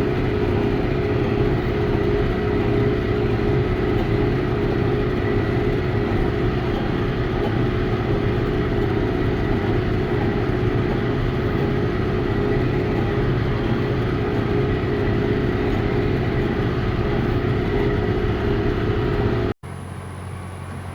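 John Deere tractor's diesel engine and a Ford 532 square baler running steadily under load, heard close up from behind the baler. Near the end the sound cuts off abruptly, leaving a quieter steady hum.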